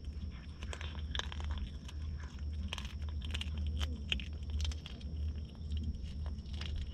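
A cat chewing and crunching on a raw fish, with many irregular wet crunches and bites. A steady low rumble runs underneath.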